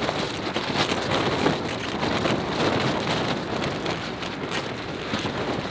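Nylon tent walls flapping and rattling nonstop in a violent windstorm, heard from inside the tent as a dense crackling clatter.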